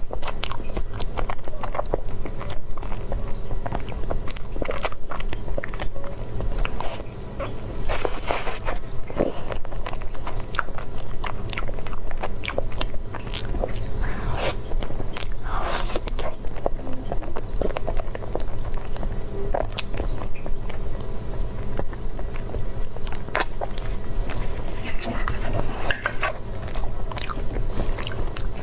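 A person biting and chewing food close to the microphone, with many short sharp mouth clicks and smacks throughout.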